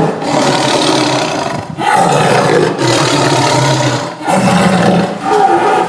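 Big cat roaring: a string of loud, rough roars with brief breaks between them.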